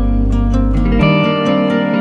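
Background music of gently plucked strings in a calm, new-age style, with a low sustained bass note that drops away about a second in.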